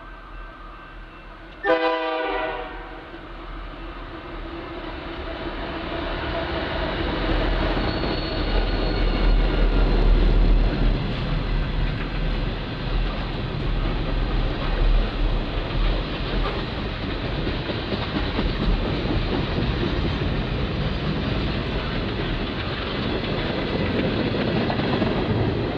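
Canadian Pacific freight train headed by GE AC4400CW and EMD SD40-2 diesel locomotives. A short horn blast comes about two seconds in, then the locomotives pass close by with a deep engine rumble, loudest around ten seconds in. A steady rolling of tank cars over the rails follows.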